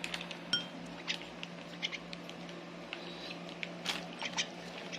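Small parrots' beaks clicking and tapping while being hand-fed formula, with a brief high chirp about half a second in and a few faint short peeps.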